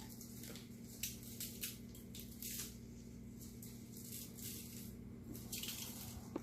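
Dry spice rub being sprinkled over raw chicken wings: faint, irregular soft hissing strokes, several a second, over a steady low hum.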